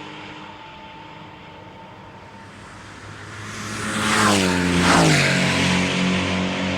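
Race cars on the circuit: a fading engine, then about four seconds in two cars pass close in quick succession, each engine's pitch dropping sharply as it goes by, followed by a steadier engine note as they pull away.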